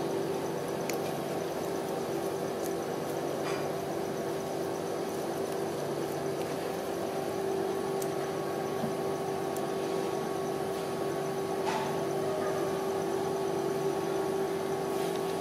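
Rolled-ice-cream machine's refrigeration compressor humming steadily, with a few faint ticks as small tomatoes drop onto its steel cold plate.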